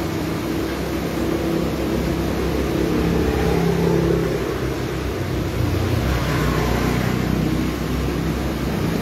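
An engine running with a low hum that rises and falls in pitch, loudest about four seconds in.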